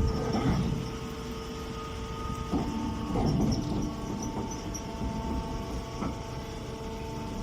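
Automatic baling machine running, a steady mechanical hum with a few fixed tones over an uneven low rumble, a little louder and rougher about three seconds in.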